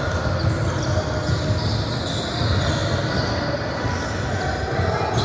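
Basketball game on a court: a ball bouncing, with scattered short knocks over steady background noise of play.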